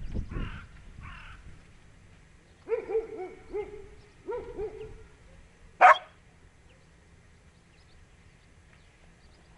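Two dogs playing and vocalising: two runs of short yowling calls that rise and fall, then one sharp, loud bark about six seconds in.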